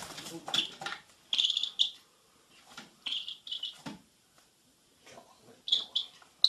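A young bird of prey giving short, high chirping calls in small groups, several times over.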